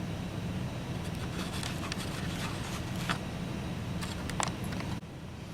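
Light handling clicks and rustles over a steady low hum. The hum drops abruptly near the end.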